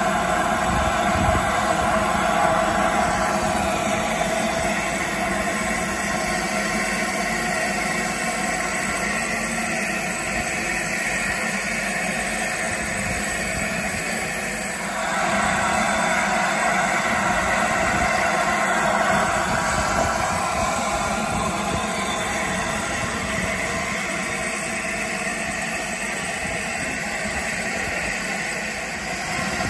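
LNER A4 Pacific steam locomotive 60007 standing at rest with steam hissing steadily. The hiss eases briefly about halfway through, then returns.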